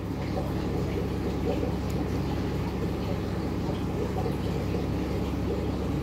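Steady low underwater rumble and churning water noise, picked up by a camera submerged in an aquarium tank.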